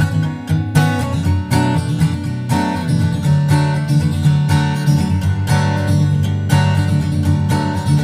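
Background music: acoustic guitar playing in a steady rhythm.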